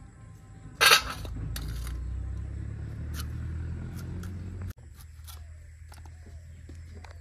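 Raw guava being sliced on a boti blade: a run of short crisp cutting clicks, with a loud burst of noise about a second in and a low rumble that cuts off suddenly a little before five seconds in.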